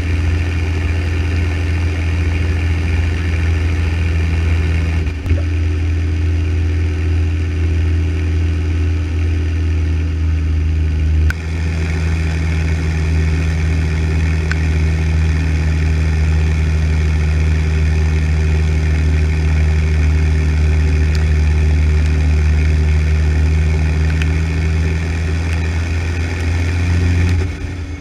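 Deutz-Fahr tractor's diesel engine running steadily as the tractor drives along a road. The sound breaks briefly twice, and the engine note drops away near the end.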